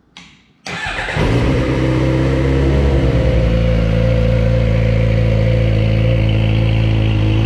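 2015 Suzuki GSX-R600's inline-four engine turning over on the starter and firing right up under a second in, then idling steadily through its crash-damaged exhaust. The engine sounds healthy.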